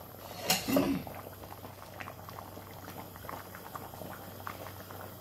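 Thickened chicken-and-bean stew bubbling in a stainless steel pot, a scatter of small pops as it simmers, just after cornstarch slurry has gone in to thicken it. A brief louder sound comes about half a second in.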